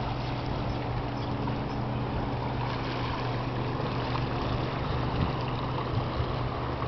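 A steady low engine hum, like a boat motor, over the wash of small waves on a pebble shore.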